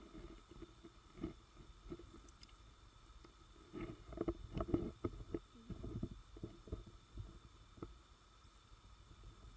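Muffled underwater noise from a submerged camera: irregular soft low thumps and gurgles of moving water and handling, busiest from about four to seven seconds in.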